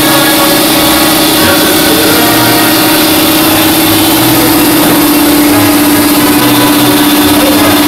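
A loud, steady machine drone with a constant hum running throughout.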